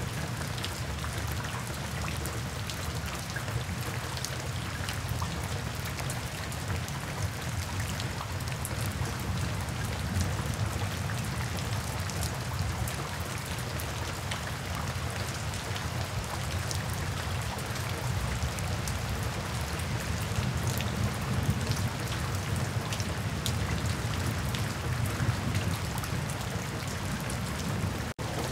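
Steady rain falling, with many individual drops splashing onto a wet hard surface and a steady low rumble underneath. There is a brief dropout near the end.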